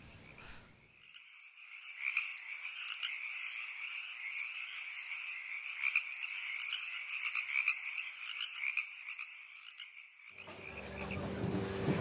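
A chorus of frogs calling: a dense, steady trilling mass with a short high call repeating about twice a second. It starts abruptly about a second in and cuts off sharply near the end.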